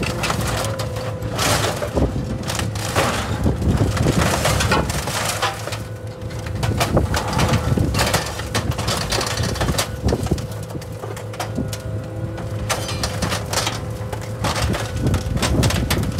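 A heavy machine's engine running steadily while scrap car metal crunches and bangs irregularly, as cars are crushed or handled for scrap.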